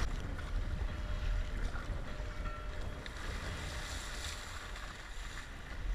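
Wind buffeting the microphone in a steady low rumble, with water rushing and splashing along a surfski's hull as it runs through wind-driven ocean chop.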